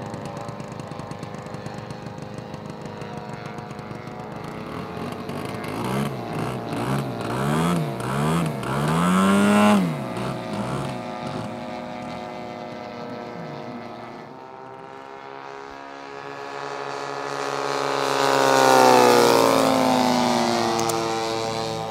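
Large-scale radio-controlled warbird model's engine flying past: its pitch wavers up and down, climbs to a peak about ten seconds in and drops sharply as the plane passes, then swells again on a second low pass near the end, the pitch falling as it goes by.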